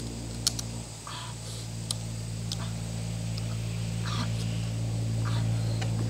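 Eating sounds: short sucking slurps as meat is drawn from cooked snail shells, with a few sharp clicks of shell. A steady low hum runs underneath and grows slightly louder.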